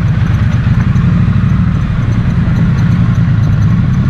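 Motorcycle on the move, a steady low engine and road rumble with no breaks or changes.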